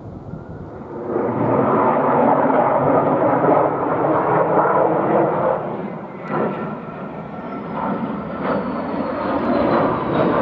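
Belgian Air Force F-16 Fighting Falcon on approach with its gear down, its Pratt & Whitney F100 turbofan giving steady jet noise that grows louder about a second in. The noise eases briefly past the middle and builds again, with a thin high whine slowly falling in pitch near the end.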